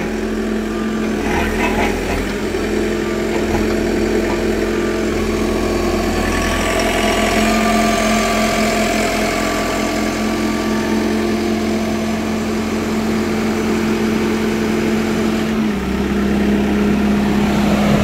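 Mecalac 6MCR compact excavator's diesel engine running steadily at idle. The note shifts slightly about three-quarters of the way through.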